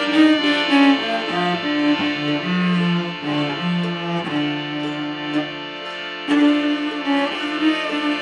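Acoustic string music: bowed cello and violin lines with long held notes over plucked guitar. It eases off briefly about six seconds in, then the full ensemble comes back in.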